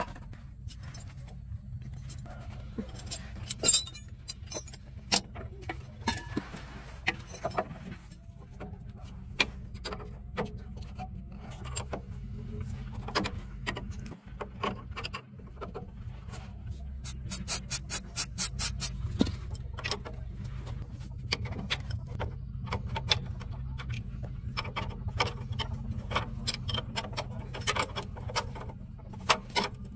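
Metal wrench and tools clinking and clicking against bolts on a light truck's underside, in scattered sharp knocks, with a quick run of about eight clicks a little past halfway. A steady low hum runs underneath.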